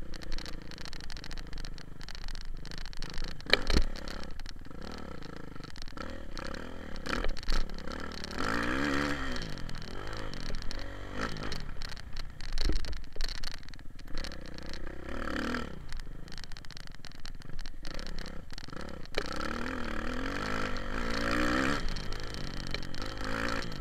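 Kawasaki KX450 dirt bike's single-cylinder four-stroke engine being ridden, revving up and falling back in repeated swells of pitch, clearest about eight seconds in and again near the end. A couple of sharp knocks cut through it.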